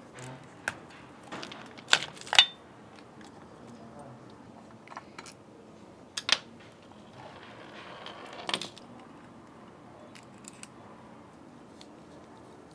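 Scattered sharp clicks and light clatter of small plastic and metal parts being handled on a model excavator's chassis, from wire plugs, small parts and a screwdriver, with a short rustling scrape about seven seconds in.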